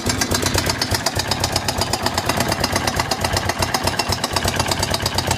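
Suzuki DR750's single-cylinder engine idling with a rapid, even knock, several strikes a second, in step with the engine; this is the knocking noise the owner is concerned about, its cause not identified.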